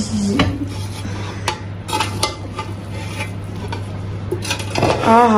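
A spoon scraping and turning rice in a pot, mixing the layers of biryani after its dum seal has been opened, with scattered clinks of metal against the pot.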